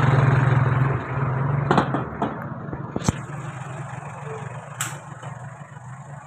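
Vehicle engine running while riding, a steady low hum that is loud at first and then fades and eases off. A few sharp clicks come through it.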